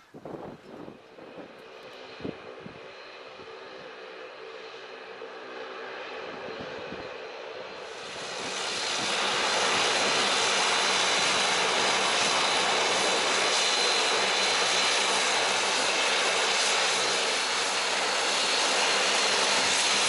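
De Havilland Canada Dash 8 Q400's twin Pratt & Whitney PW150A turboprop engines running as the airliner taxis and turns onto its parking stand. A quieter, slowly rising engine sound gives way about eight seconds in to a loud, steady rush with a high whine.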